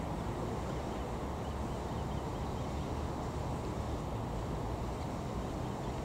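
Steady low rumbling background noise that stays even throughout, with no distinct calls or splashes standing out.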